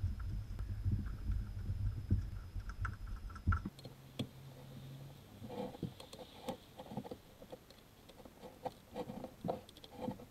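Hand work on a BMW M54 engine's water pump pulley: a low rumbling handling noise for the first few seconds, then after an abrupt change, a run of small irregular metallic clicks and taps as a hand tool is worked on the pulley bolts.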